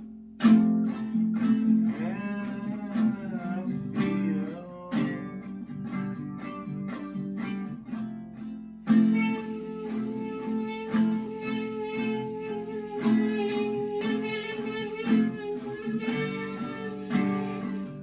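Acoustic guitar strummed in a steady rhythm as the instrumental break of a song, with a long held note over it in the second half.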